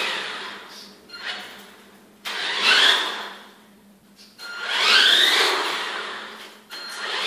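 HSP 4WD radio-controlled car's brushed electric motor and gears whining in bursts of throttle. A short burst comes about a second in, then longer runs, the pitch rising and falling within each.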